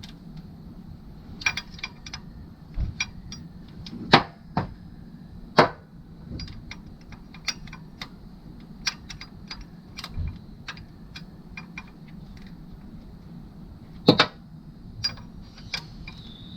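Hand tools clicking and clinking on metal engine parts while bolts are worked: scattered sharp clicks, with louder knocks about four, five and a half, and fourteen seconds in.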